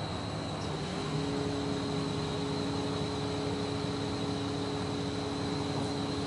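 Liebherr mobile crane's engine and hydraulics running as a steady mechanical noise, with two constant low tones setting in about a second in over a thin high whine.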